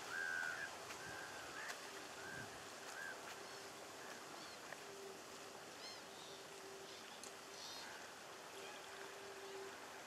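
A cat meowing: a short mew repeated about five times over the first three seconds, then fainter high chirps over a quiet outdoor background with a faint steady hum.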